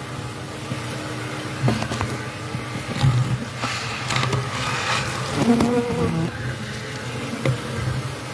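Honeybees buzzing in large numbers around an exposed hive, a steady hum with a few knocks mixed in.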